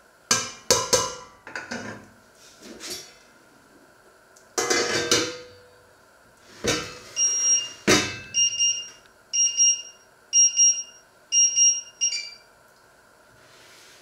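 Stainless steel pot, ladle and lid clanking and knocking, the loudest knock about eight seconds in. From about seven seconds, a run of five or six high electronic beeps about once a second from the electric hob's touch controls.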